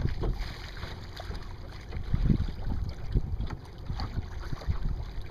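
Wind buffeting the microphone in uneven gusts, with water slapping and splashing against the hull of a small sailboat under way.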